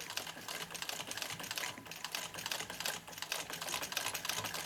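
ПМЗ-1А (Podolsk) sewing machine running at speed, stitching through a thick layer of leather and fabric: a rapid, even clatter.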